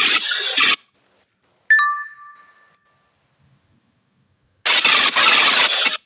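Pebble sound effect: two bursts of pebbles rattling, the first brief and the second about a second and a half long, with a single bright ding between them that rings out and fades over about a second.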